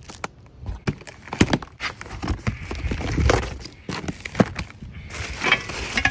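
A cardboard shipping box being opened by hand: irregular knocks and scrapes of cardboard and tape, with crinkling plastic wrap around the steel parts near the end.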